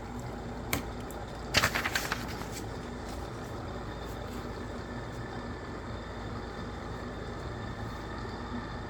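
Household kitchen sounds over a steady low hum: a single sharp click just under a second in, then a short, loud rattling clatter of hard objects at about a second and a half.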